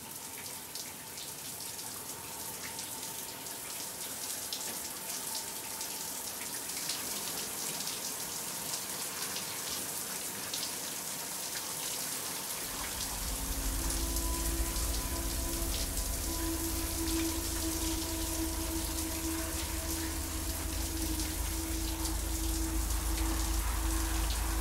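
Shower running, its water spraying steadily. About halfway through, a low sustained drone with a few held tones comes in under the spray and stays.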